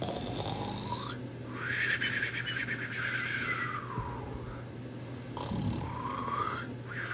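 Mock snoring voiced for a sleeping toy character: slow snores in a high, breathy tone that rises on each in-breath and sinks on each longer out-breath, twice.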